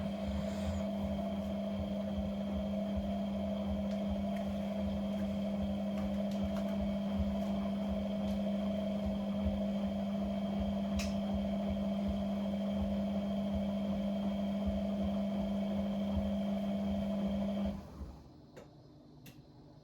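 An appliance's electric motor running with a steady hum, cutting off suddenly near the end, followed by a few faint clicks.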